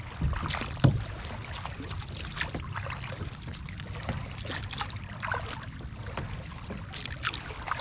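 Kayak paddle strokes splashing and dripping, with water lapping at the hull; the loudest stroke comes about a second in.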